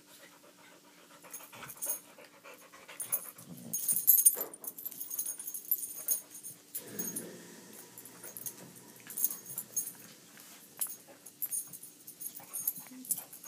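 A Boxer and a Brussels Griffon play-fighting on a fabric couch: panting and scuffling, with irregular rustles and soft knocks, loudest about four seconds in.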